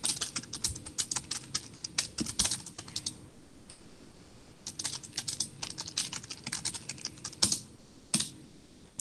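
Typing on a computer keyboard: quick irregular runs of keystrokes, pausing for about a second and a half around three seconds in, then resuming, with a couple of harder key presses near the end.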